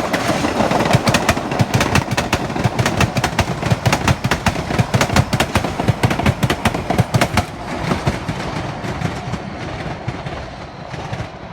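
MBTA Blue Line rapid-transit train arriving, its wheels clicking rapidly over the rail joints over a running rumble. The clicking stops about two-thirds of the way through and the rumble fades.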